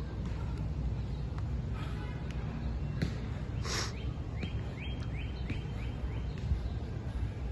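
Steady low outdoor rumble, with one loud breathy whoosh just before four seconds in, then a small bird giving a quick run of seven short rising chirps, about four a second.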